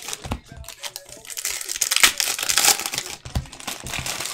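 Foil trading-card pack wrappers crinkling and tearing as packs are handled and opened by hand, in irregular crackly bursts. A couple of soft low knocks come through about a third of a second in and again after about three seconds.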